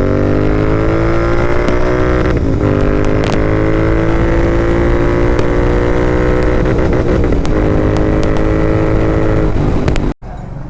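Royal Enfield Interceptor 650's parallel-twin engine running loud through a Red Rooster aftermarket exhaust, its pitch climbing steadily as it pulls. The pitch breaks and dips briefly twice, then the sound cuts off abruptly near the end.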